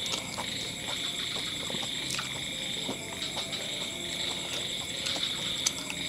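Steady chorus of night insects, heard as a continuous high chirring, with chewing and small clicks and smacks from eating by hand close to the microphone.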